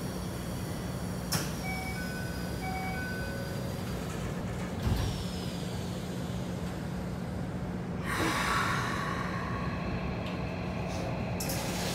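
Inside a Keikyu 1000 series commuter car at a station stop: a short electronic door chime, then the sliding doors shutting with a thump about five seconds in. About eight seconds in comes a burst of air hiss as the brakes release, over a steady hum from the car's equipment.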